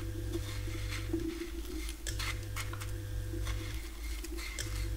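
Fingers pressing a batter-coated slice of tempeh into dry breadcrumbs in a plate: scattered light crackly ticks and rustles. Underneath, a low hum cuts in and out about every two and a half seconds.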